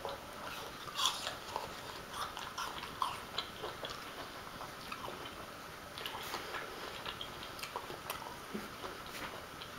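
A person chewing a mouthful of food, with irregular small crunches and clicks.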